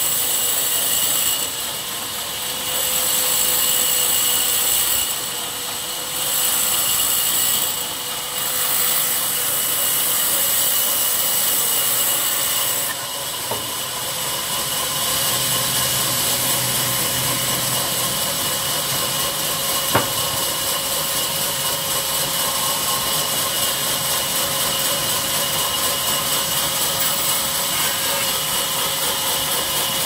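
Sawmill saw running and cutting through wattle logs: a steady high machine whine with the rasp of the blade in the wood, swelling and dropping several times in the first dozen seconds as pieces go through, then running on evenly. One sharp knock about twenty seconds in.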